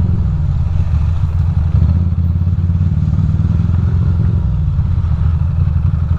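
Ducati Monster's V-twin engine running at low revs in slow traffic, a steady, low-pitched engine note.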